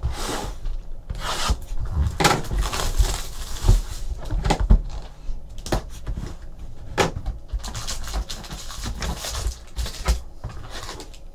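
Hands handling a cardboard trading-card hobby box: the lid scraping and sliding off and foil card packs rustling as they are lifted out, with a few sharp knocks against the table.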